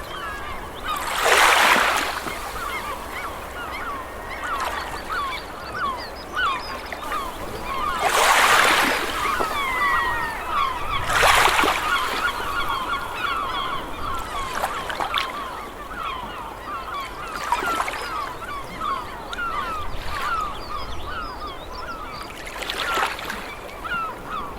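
A flock of birds calling: many short, overlapping honking calls throughout, with five loud noisy bursts every few seconds.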